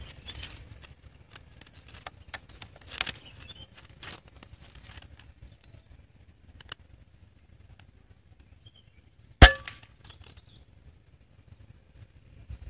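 PCP air rifle firing a single shot about nine seconds in: one sharp crack with a brief ring after it. Before it, faint scattered clicks and rustling.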